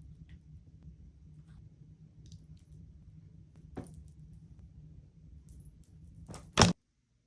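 Small objects being handled and set in place: faint scattered clicks and taps over a low steady rumble, a sharper click partway through, and one loud knock near the end, after which the sound cuts off suddenly.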